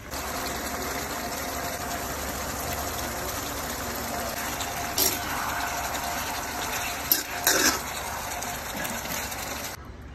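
Sauce simmering and bubbling around chicken pieces in a stainless wok: a steady hiss, with a few sharp metal clinks of a spatula against the pan from about halfway through. The hiss cuts off abruptly near the end.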